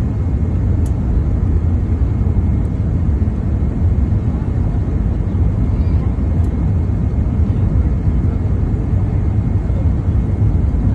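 Steady low rumble of an Airbus A380's engines and rushing air, heard inside the passenger cabin on the landing approach.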